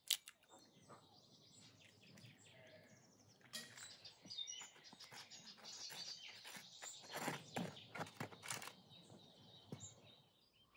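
Small songbirds chirping repeatedly, with a sharp crack at the very start as an eggshell is broken open, and a few brief soft handling noises.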